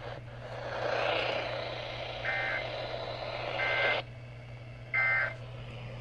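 EAS end-of-message data bursts over AM radio: three short two-tone warbling bleeps about a second and a half apart, over static hiss. They mark the end of the monthly test broadcast.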